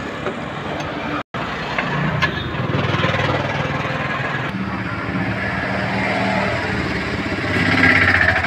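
A motor vehicle engine running steadily, louder and fuller toward the end, with a brief total cut-out about a second in.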